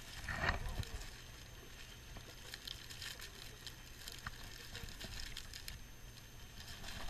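Small zip-top plastic bag crinkling faintly as hands open it and pull out a fishing fly: a brief rustle near the start, then scattered soft ticks and crinkles over a low steady rumble.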